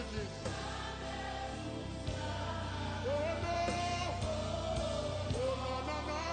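Live gospel song: a man sings the lead over steady band accompaniment, holding one long note in the middle.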